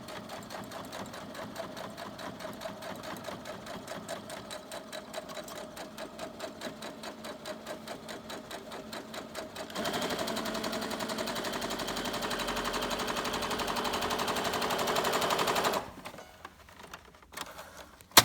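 Brother Innovis 15 sewing machine running a straight stitch through eight layers of denim and off onto a single layer of organza, with a steady, even stitching rhythm. About ten seconds in it speeds up and gets louder, stopping a few seconds before the end; a few light clicks and one sharp click follow near the end.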